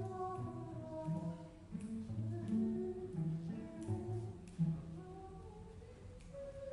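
A voice singing or humming a slow melody without accompaniment, in held notes that change about every half second, with a few light clicks.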